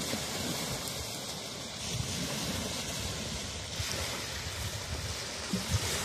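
Small waves washing onto a sandy beach, a steady surf hiss, with irregular low rumbles of wind buffeting the microphone.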